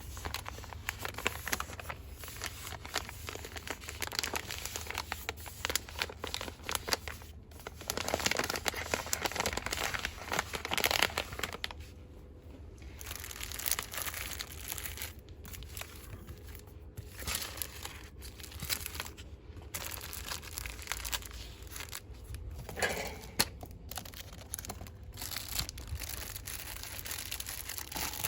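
Cosmetic product packaging handled fast by hand, with quick, dense crinkling and rustling that eases off briefly about halfway through before picking up again.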